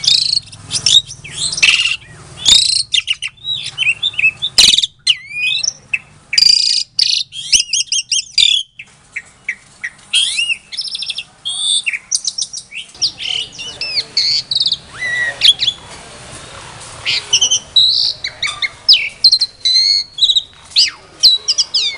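Javan pied starling (jalak suren) singing: a fast, varied run of loud whistles, chattering notes and sharp clicks, thinning out briefly a couple of times before picking up again.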